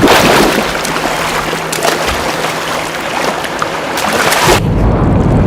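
Seawater churning and splashing hard, a loud steady rush, as killer whales' tail side-swipes stir violent turbulence. It gives way to a deep low rumble near the end.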